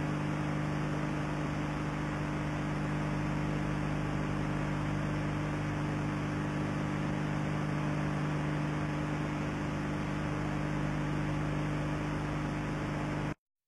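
Steady electrical mains hum with several low pitches under an even hiss, the noise floor of an old analog video recording. It cuts off abruptly to silence near the end.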